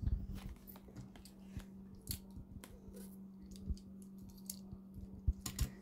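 Scattered light clicks and taps from a small Hot Wheels die-cast toy car being handled at a table, over a faint steady hum.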